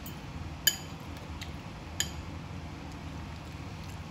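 A metal spoon clinking against a ceramic bowl: two sharp ringing clinks about a second and a quarter apart, the first the louder, with a few fainter taps.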